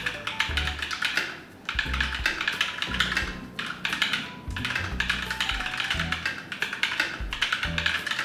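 Rapid typing on a mechanical keyboard fitted with Akko Piggy Party keycaps, a dense run of key clicks with a couple of short pauses, over background music with a bass line.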